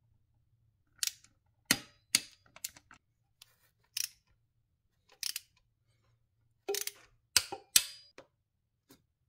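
Torque wrench on the thermostat housing bolts of a Mercedes M272 V6 as they are brought to 10 N·m: a scattered series of sharp clicks, some in quick pairs.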